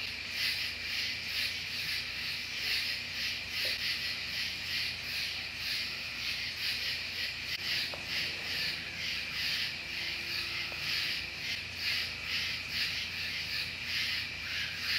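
Steady high-pitched chirring of insects, pulsing evenly about twice a second, over a faint low hum.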